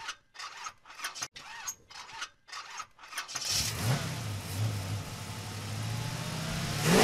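Car engine being cranked, which sounds as short even pulses about twice a second for roughly three seconds. It then catches and runs at a steady idle, and revs up briefly near the end.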